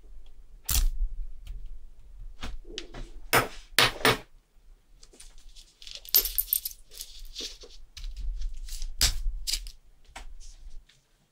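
Small metal clicks and taps of watch parts and tools being handled, irregular and of varying strength, with a short scraping rustle about six seconds in.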